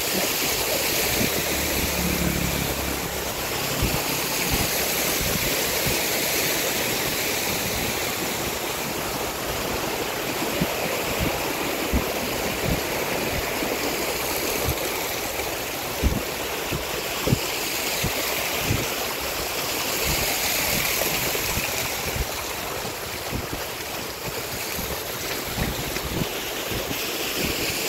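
Steady rushing wind and wet-road noise from a motorbike moving along a rain-soaked road, with a few short low thumps scattered through it.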